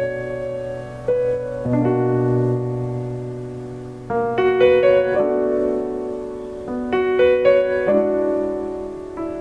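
Keyboard played with a piano sound: slow, gently held chords that change every second or two, with a few higher notes coming in twice.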